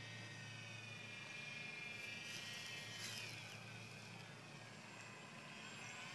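Faint whine of an RC airplane's electric brushless outrunner motor and propeller in flight, its pitch drifting down and dropping more steeply about three seconds in as the plane passes or throttles back.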